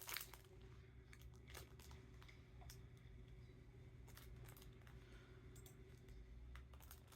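Quiet room with faint handling noises: scattered light clicks and soft plastic rustling over a steady low hum.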